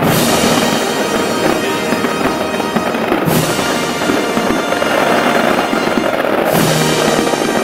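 Big fireworks display: continuous dense crackling and popping of many shells, with three louder bursts, one at the start, one about three seconds in and one about six and a half seconds in.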